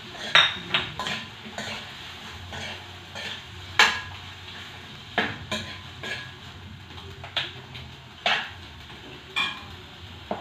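Chicken sautéing in a pot with garlic, onion and ginger, stirred with a utensil: irregular scrapes and knocks against the pot about once a second over a faint sizzle.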